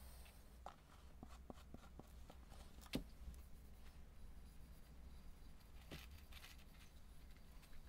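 Faint handling sounds of bare hands rubbing linseed oil into a carved oak mallet: light clicks and rubbing, with a soft knock about three seconds in and another near six seconds.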